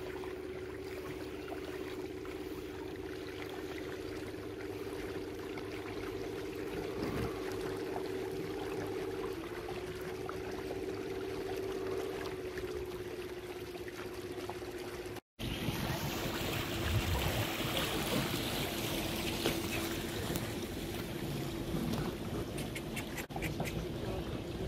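A small wooden launch's motor running with a steady hum, over water lapping and rushing along the hull. About fifteen seconds in the sound cuts out for a moment and comes back with the rush of water louder.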